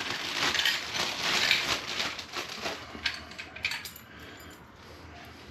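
Small metal deadbolt parts clinking and scraping as they are handled, with packaging crackling. Fast clicks and rattles fill the first few seconds, then it goes quieter.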